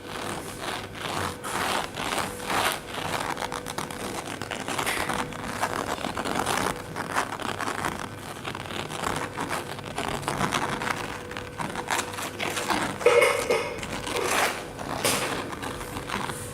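Kittens scrambling and playing: rapid scratching, scraping and rustling of claws and paws with many small clicks, and one louder brief sound near the end.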